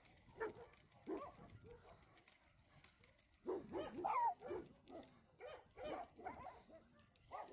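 Several dogs barking, yipping and whining in short, scattered calls, with the loudest, a rising-and-falling whine, about four seconds in.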